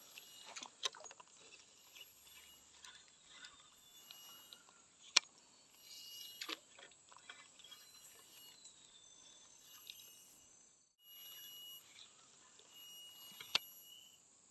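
Faint outdoor ambience with a faint high pulsing, like insects, repeating throughout, and a few thin held whistle-like tones. Scattered sharp clicks and rustles from handling the fishing rod; the loudest click comes about five seconds in.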